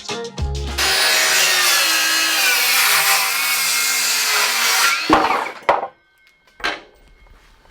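A power saw cutting through a wooden framing board for about four seconds, its blade whine wavering in pitch under load, followed by a few knocks. Background music with a beat fades out just before the cut.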